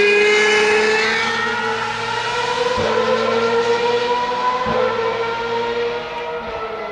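Ferrari Formula One car's engine at high revs, a continuous high-pitched scream that dips and rises slightly in pitch as the car laps the circuit. It fades as the car moves away near the end.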